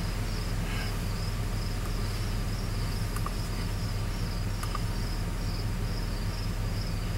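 A 6.0-litre V8 truck engine idling steadily, with a cricket chirping in a quick, even rhythm over it.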